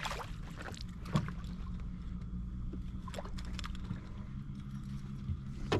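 Steady low hum of a small boat motor, with a few sharp clicks and knocks from the anglers handling the rod and fish in the boat; the loudest knock comes near the end.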